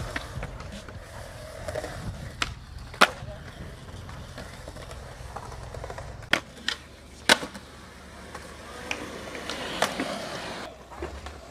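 Skateboard on concrete: wheels rolling with a low rumble, and several sharp clacks of the board hitting the ground, the loudest about three seconds in.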